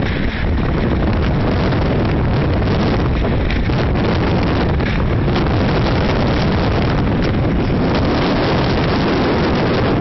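Typhoon-force wind buffeting the microphone: a loud, steady rumble with no let-up.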